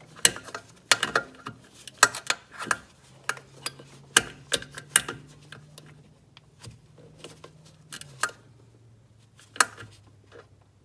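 Metal hand tool clicking and clinking on a bolt as it is tightened snug, in irregular bursts that are thickest over the first five seconds and then thin out to a few single clicks. A low steady hum runs underneath.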